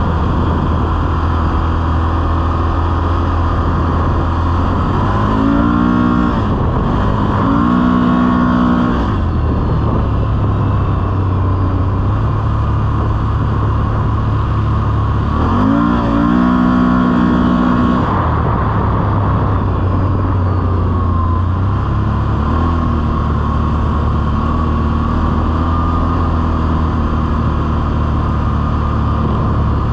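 Can-Am Outlander ATV engine running under way, a steady drone that rises in pitch as the throttle is opened, about six seconds in and again about sixteen seconds in.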